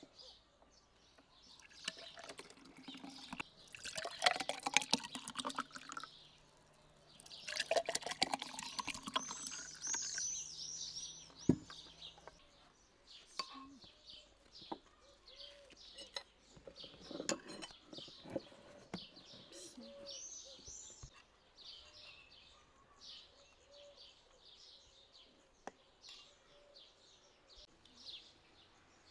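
A drink poured from a bottle into tall glass tumblers, twice, the pitch of the pour rising as each glass fills. A sharp knock follows about eleven seconds in, and small birds chirp through the rest.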